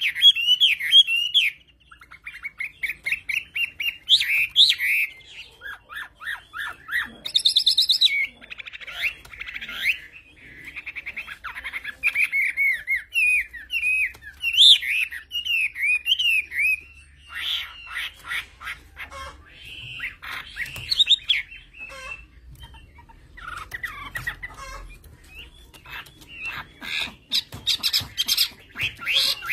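Chinese hwamei (Garrulax canorus) singing: a long, varied song of rapid whistled phrases and trills, mixed with stretches of fast, harsher chattering notes and broken by brief pauses.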